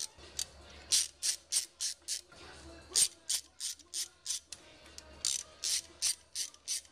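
Socket ratchet on a long extension clicking as it backs off the carburetor's hold-down nuts. There are three quick runs of clicks, about four a second, with short pauses between them.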